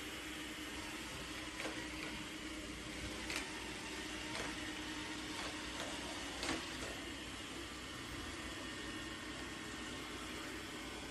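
Steady low machine hum with a faint constant tone, broken by a few short light clicks.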